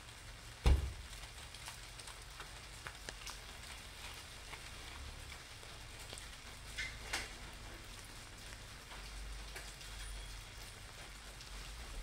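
Steady rain falling on wet pavement and pattering on an umbrella, with scattered single drips. A single sharp thump comes about a second in, and a low rumble builds near the end.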